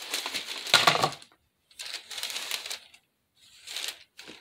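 White foam craft pieces (a foam heart on round foam boards) being handled: rubbing and scraping in three short bursts with silent gaps between, the loudest just under a second in.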